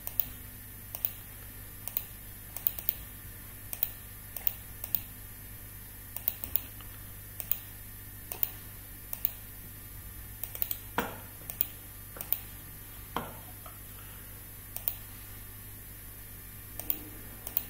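Scattered clicks of a computer mouse and keyboard, irregular, about one or two a second, over a steady low hum.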